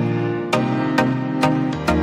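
Background music with a steady beat of about two notes a second over held chords.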